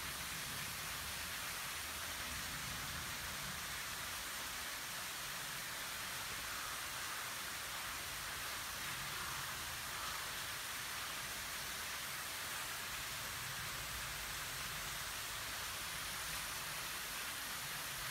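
Small waterfall pouring steadily: an even hiss of falling water.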